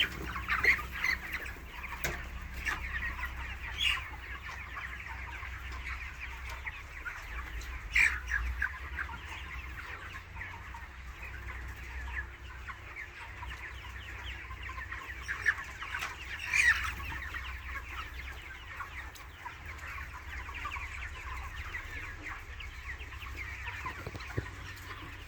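A poultry shed full of chickens clucking and calling all together in a steady din, with a few louder calls standing out. A steady low machine hum runs underneath.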